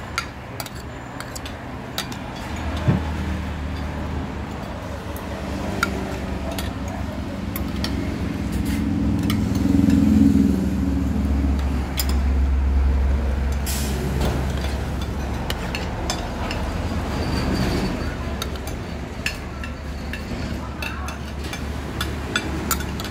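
A motor vehicle's engine running close by, growing from about three seconds in, loudest around ten seconds and easing off after. Sharp clinks of a spoon and fork on a plate come through now and then.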